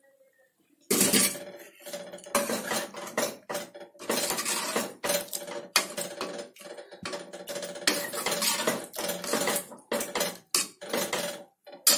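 Steel ladle scraping and clinking against the inside of an aluminium pressure cooker pot while stirring chickpeas into a masala gravy, in quick, irregular strokes with a steady ringing note from the pot. It starts about a second in.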